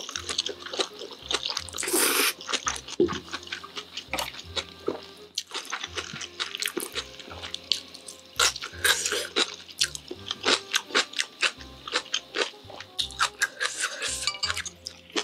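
Close-miked slurping and chewing of spicy cold naengmyeon noodles, a dense run of quick wet smacks and clicks. Soft music plays underneath.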